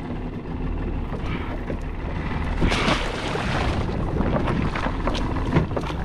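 Wind buffeting the microphone and water sloshing beside a small wooden boat, with a louder rush of noise about three seconds in.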